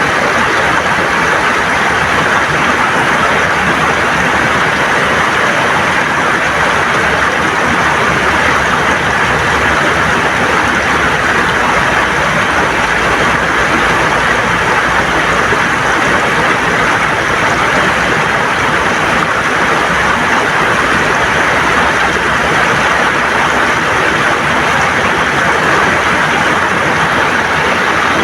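River water rushing and gurgling over stones in a steady, unbroken loud rush.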